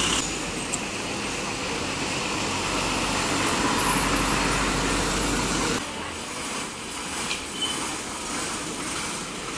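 Ashok Leyland diesel bus engines running as the buses move slowly past at close range, with street traffic noise. The sound drops abruptly about six seconds in, where one bus gives way to another.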